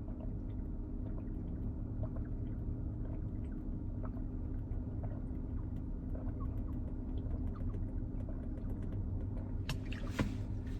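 A person drinking from a beverage in gulps and sips over the steady low hum of a car cabin, with small clicks throughout and a few louder sounds near the end.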